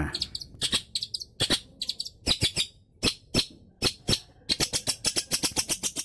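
Caged long-tailed shrike (cendet) calling in a string of short, sharp chirps, irregularly spaced, quickening into a rapid run of notes near the end.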